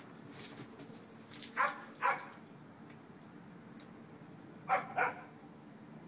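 A dog barking: two pairs of short barks, the second pair about three seconds after the first.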